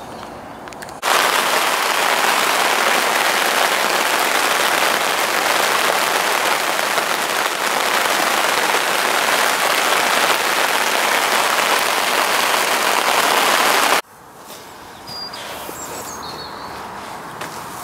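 Heavy rain falling on open water, a loud steady hiss. It starts suddenly about a second in and cuts off abruptly about fourteen seconds in.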